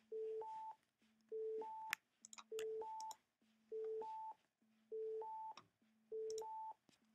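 Pure Data sine-wave oscillator stepping up in octaves, about three notes a second: 220 Hz, 440 Hz, 880 Hz, then a gap where the 110 Hz note barely comes through the laptop speakers, the four-step pattern repeating about every 1.2 seconds. A few faint clicks fall in between.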